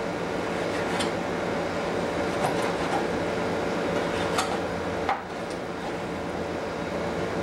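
Kitchen knife slicing raw chicken breast on a cutting board, a few faint knocks of the blade meeting the board over a steady background hum.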